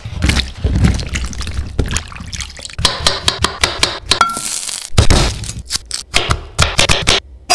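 Close-up food-prep sounds. Whole button mushrooms tumble from a plastic punnet into a glass baking dish of water. Then a knife slices through mushrooms and garlic cloves on a wooden cutting board in a quick series of crisp cuts and taps.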